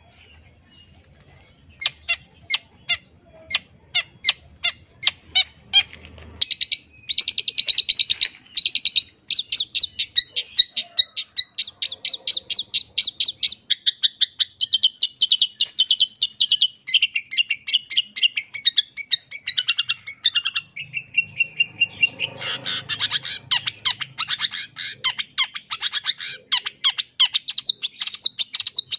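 Long-tailed shrike (cendet) singing: a string of sharp chips that come quicker and quicker, then, after a short break, a long run of fast, high chattering notes, its song filled with mimicked phrases of other birds.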